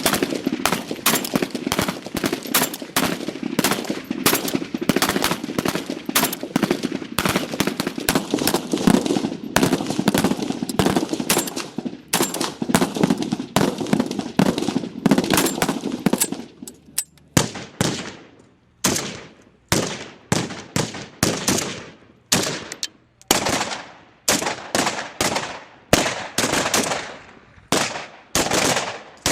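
AK-47 rifle firing on full automatic in long continuous bursts for about the first sixteen seconds, then switching to single shots and short bursts spaced under a second apart, each trailing off in an echo.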